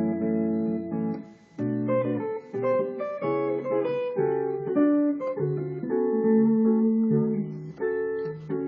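Hollow-body electric guitar with a clean amplified tone playing a jazz improvisation of held chords and single-note lines. There is a brief break about a second and a half in.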